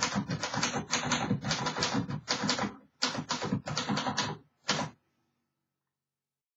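1951 Underwood Champion Finger Flite manual typewriter being typed on: a quick run of key strikes, about four to five a second, that stops about five seconds in.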